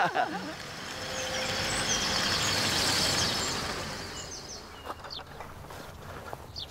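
A vehicle passes, its sound swelling to a peak about three seconds in and fading away, while small birds chirp.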